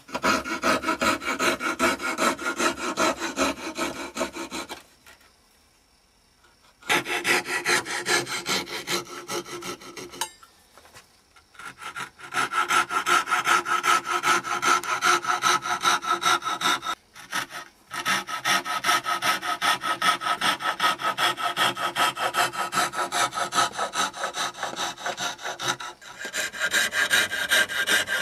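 Fine-bladed hand frame saw cutting through limewood clamped in a vise, in quick back-and-forth strokes, sawing the waste corners off a carved wooden chain blank. It stops for a couple of seconds about five seconds in, again briefly about ten seconds in, and for a moment about seventeen seconds in.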